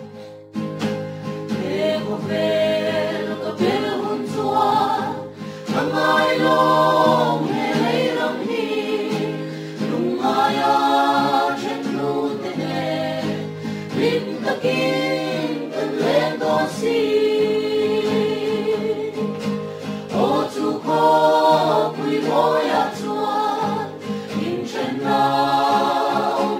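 A group of voices singing a gospel hymn in Mizo, phrase after phrase with short breaths between, over a steady low held tone.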